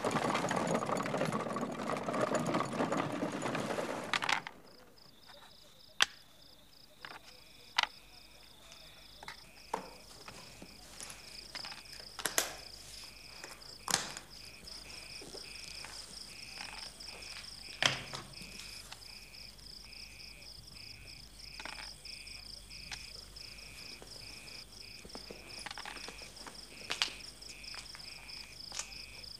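An open horse-drawn carriage rolling, its wheels and body rattling, cuts off suddenly about four seconds in. Then come crickets chirping in a steady pulsing trill, with scattered sharp clicks and knocks.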